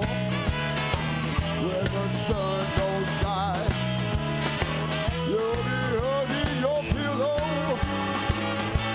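A blues band playing live: drums keep a steady beat under bass guitar, electric guitar, keyboard and horns, with a wavering lead line over the top.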